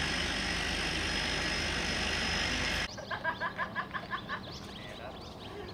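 Cessna Caravan cargo plane's turboprop engine running as it taxis: a loud rushing noise with a steady high whine, cut off abruptly about three seconds in. A quick run of about ten short, evenly spaced chirps follows for about a second and a half.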